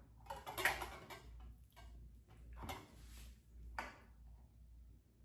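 Light clinks and knocks of kitchen utensils and a mixing bowl being handled, in a few short bursts.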